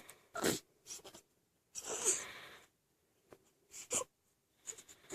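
Newborn baby hiccuping: short, breathy hics at irregular intervals, with a longer breath about two seconds in.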